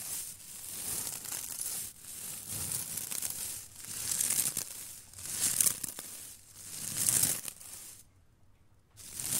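Straw broom pushed in repeated strokes, its dry straw bristles crackling and rustling, each stroke swelling and fading about every second and a half. The strokes pause for about a second near the end.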